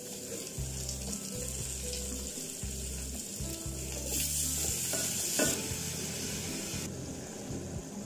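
Chopped onions, carrots and green pepper sizzling in hot oil in an aluminium pot. About four seconds in, diced tomatoes are tipped in and the sizzle grows louder for a second or so, with a sharp clink of the stirring spoon on the pot.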